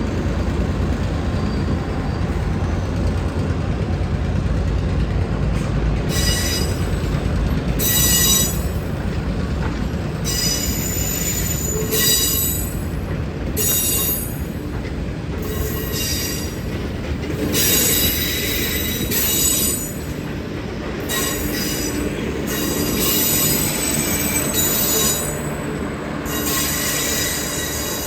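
Low rumble of a Y class diesel shunting locomotive moving a rake of passenger cars. From about six seconds in come repeated high-pitched squeals of train wheels on the rails, each lasting up to a couple of seconds, on and off.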